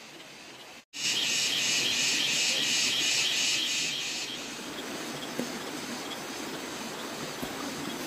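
Insect call, a loud high-pitched pulsing at about three pulses a second, starting sharply about a second in and stopping at about four seconds. After it comes a steady, softer outdoor background hiss.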